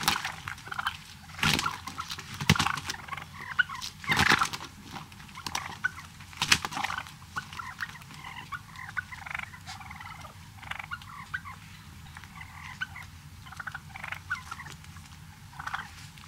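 Wild turkey toms gobbling, several loud gobbles in the first seven seconds, followed by softer, shorter turkey calls scattered through the rest.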